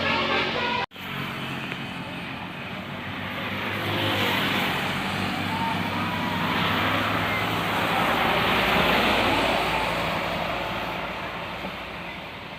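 A musical horn call ends abruptly at a cut about a second in. It is followed by road-vehicle noise, engine hum and tyre rush, that swells for several seconds and then fades as the vehicle passes.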